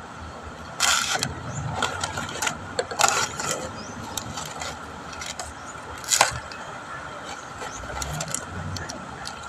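Coconut leaflets being stripped from their midribs for a tingting broom: short scraping strokes about a second, three seconds and six seconds in, with small clicks and snaps between.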